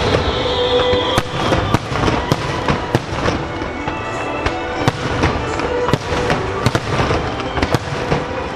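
Starmine barrage of aerial firework shells bursting over a lake, sharp bangs about twice a second with heavy echo, while accompanying music plays over loudspeakers.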